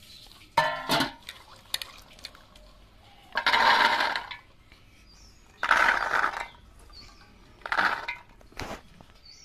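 Shelled green peas being rinsed by hand in water in a steel bowl: a sharp metallic clink of the bowl early on, then three short bursts of water swishing and splashing as the peas are stirred and drained.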